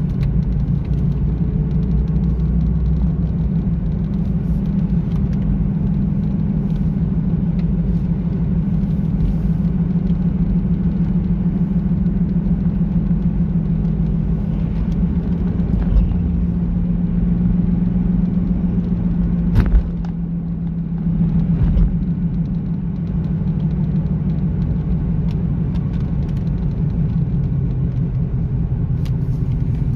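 A 2001 Ford Mustang driving, heard from inside the cabin: a steady low engine drone with road noise. A single sharp knock comes about twenty seconds in.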